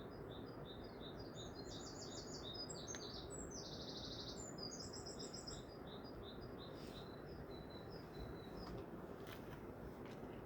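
A bird singing a long series of high chirps and rapid trills in varied phrases, which stop about three-quarters of the way through, over a steady low background hiss.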